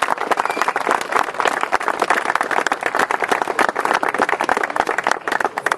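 Crowd applauding, a dense run of hand claps that thins out near the end.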